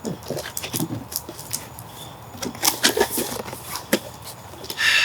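Cardboard packaging being handled and opened: scattered clicks, taps and rustles, with a brief squeaky whine in the first second and a scraping rasp near the end.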